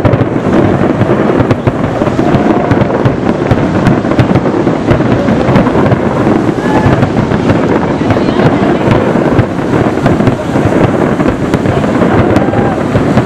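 Fireworks barrage: many aerial shells bursting in a dense, unbroken run of booms, loud and continuous with no pauses between bursts.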